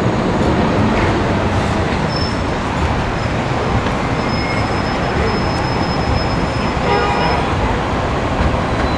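Dense city street traffic noise, buses and cars running at a steady level. A thin high squeal holds for a few seconds in the middle, and a brief pitched sound comes about seven seconds in.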